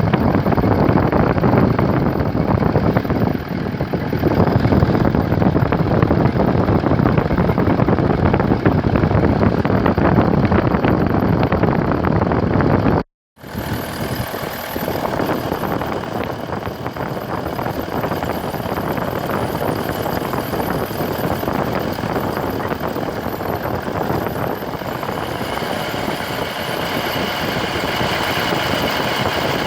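A new car's engine running at idle under the hood, with a steady noise that breaks off briefly about 13 seconds in. In the second part a faint steady whistle sits above the engine noise, growing clearer near the end. This is the under-hood whistle the owner is chasing.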